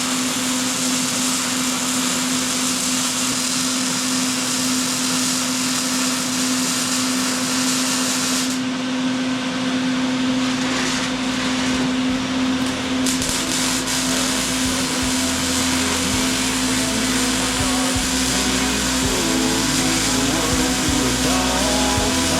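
A small electric motor running steadily with a constant hum-whine. From about halfway through, a low bass line comes in under it.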